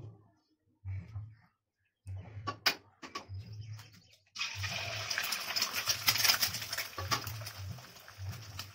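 Eggs cracked into hot mustard oil in a brass kadhai, sizzling: a sudden loud, crackling sizzle starts about halfway through and keeps on. Before it come a few sharp taps of eggshell against the pan.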